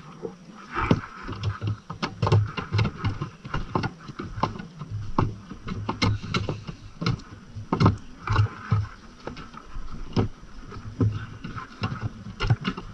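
Irregular clicks and knocks of a screwdriver and hard plastic parts as screws are taken out of an S550 Mustang headlight housing, some with a dull thud beneath.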